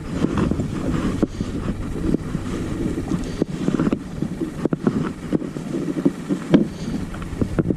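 Choppy sea water sloshing and slapping against a kayak hull, with wind buffeting the microphone and frequent small knocks and taps throughout.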